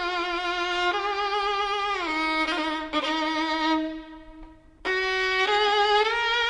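Background music: a solo melody with strong vibrato. One note dies away about four seconds in, then the line picks up again.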